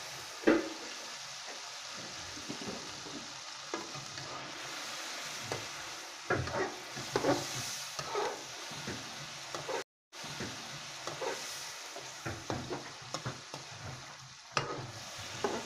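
Raw chicken pieces sizzling as they sear in hot ghee in a steel karahi, a steady frying hiss with a ladle scraping and knocking against the pan as they are turned. The sound cuts out for a moment about ten seconds in.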